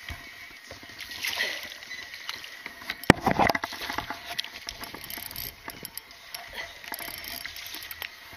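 Spinning reel being cranked while fighting a hooked fish from a kayak, with water splashing and scattered clicks and knocks. A sharp knock about three seconds in is followed by a brief burst of splashing.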